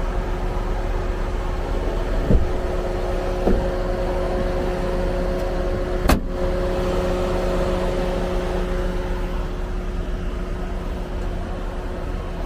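Steady motor-vehicle rumble, with three short knocks about two, three and a half and six seconds in, and a steady droning hum through the middle.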